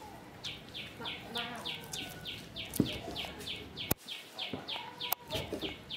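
Rhythmic background chirping: a steady run of short high chirps, about three a second, each dropping in pitch. Two sharp clicks stand out about four and five seconds in.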